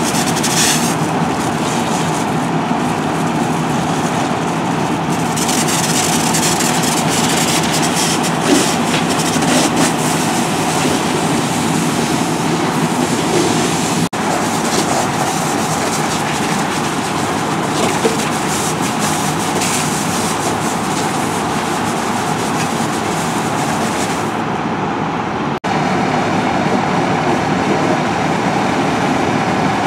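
Fire engine's diesel engine and pump running steadily at pumping speed, a loud continuous mechanical drone, with water spraying from a hose nozzle at the start.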